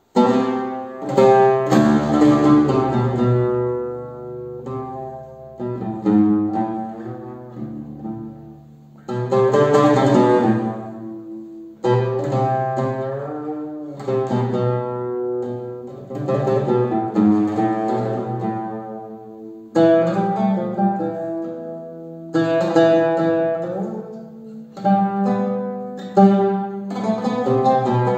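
Solo oud playing an instrumental passage in makam Nihâvend: melodic phrases of plucked notes, each opening with a loud stroke that rings and fades.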